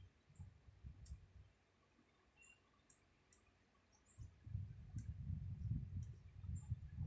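A sleeping woman snoring: a low, rattling snore dies away about a second in, and after a few seconds' pause a longer, louder snore starts about four seconds in. Faint short high clicks and chirps are scattered throughout.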